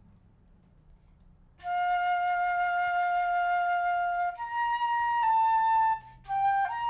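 Concert flute played solo, starting about a second and a half in: one long steady note held for over two seconds, then several shorter, higher notes, with a brief break near the end.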